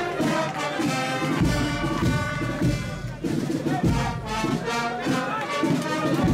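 Marching music from a brass band, held brass notes over low drum beats.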